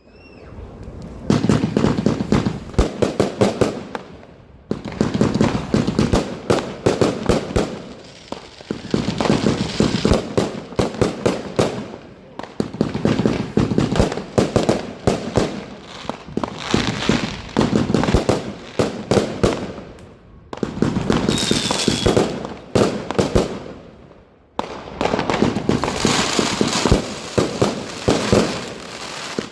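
Pyrocentury Feuer Frei, a 288-shot 25 mm firework compound cake, firing rapid volleys of shots. The volleys last a few seconds each, with brief lulls between them.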